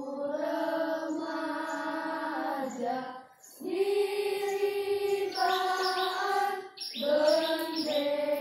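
A choir of children singing together in long held notes, phrase by phrase, with short breaks about three and seven seconds in.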